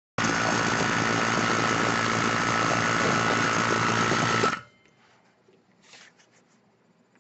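Electric vacuum pump running steadily with a motor hum and a steady whine, pulling vacuum on a filter flask; it cuts off suddenly about four and a half seconds in.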